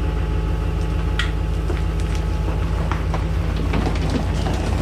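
GMC Sierra 2500 HD pickup's engine running steadily as the truck moves off, with scattered clicks and crunches of its tyres on gravel.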